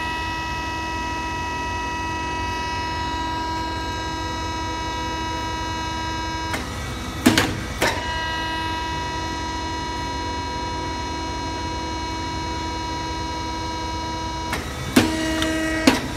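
Pneumatic soap stamping machine running with a steady hum made of several even tones, while its air cylinder slowly draws the upper soap mold back. The hum breaks off with sharp mechanical clicks about seven seconds in and again near the end.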